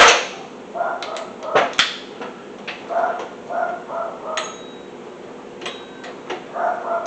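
Metal hand tools knocking and clicking against the engine while the power steering pump bolts are being loosened. There is a sharp knock at the start and two more about one and a half to two seconds in, with short runs of clicking between them.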